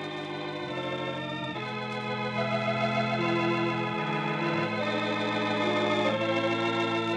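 Organ playing slow, held chords that change every second or two: the radio program's closing music.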